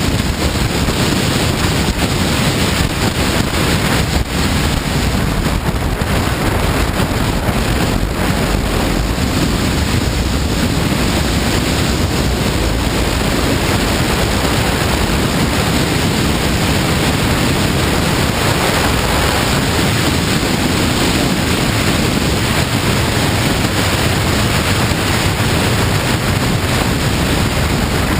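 Steady, loud wind rush buffeting the microphone while riding a motorcycle at speed, with vehicle and road noise underneath.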